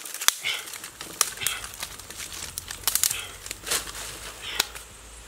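Dry leaves and twigs rustling and crackling as a small smoky leaf-and-stick fire is stoked by hand, with irregular sharp snaps.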